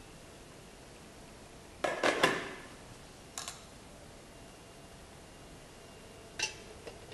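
Metal cookware clattering as the baking tin is set into the steamer. A loud cluster of ringing clanks comes about two seconds in, followed by a couple of lighter knocks.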